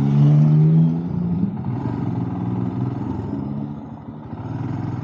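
Motorcycle engine running while riding, loudest in the first second as the revs ease off slightly, dipping near the end before picking up again.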